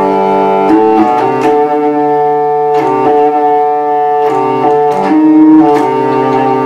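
Hurdy-gurdy played: the cranked wheel keeps a bass D drone sounding steadily while a low melody is played on the keys, the notes changing every half second to a second, with a light click at each key change.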